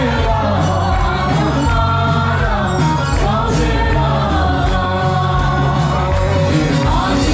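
Worship music: voices singing over loud amplified accompaniment with a strong, steady bass.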